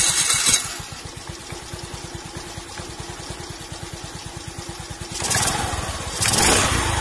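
Scooter engine running with the CVT cover off: loud for the first half second, then settling to a steady idle with the drive belt and variator turning. About five seconds in the revs rise and the centrifugal clutch engages, setting the rear clutch bell spinning.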